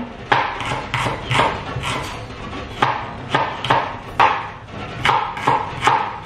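Kitchen knife chopping garlic and shallots on a wooden cutting board: a steady run of sharp knocks, about two a second.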